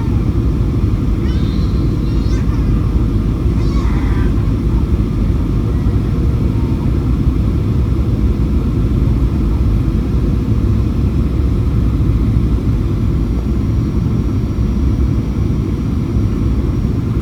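Steady rumble of airflow and engines heard inside the cabin of a Boeing 737-800 airliner. Faint voices come through briefly about one to four seconds in.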